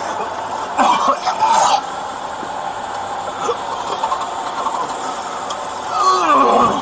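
A man's voice, groaning or mumbling without clear words twice, about a second in and again near the end, the last time falling in pitch, over the steady hum of an idling police car.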